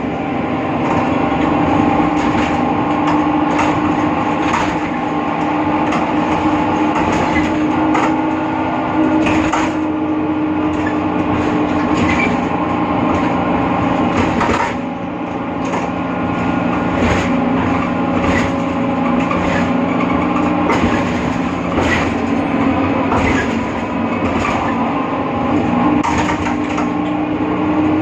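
BredaMenariniBus Avancity Plus city bus driving, with a steady whine that drifts slowly up and down in pitch, the strange sound that comes from the bus's differential, over frequent rattles and knocks.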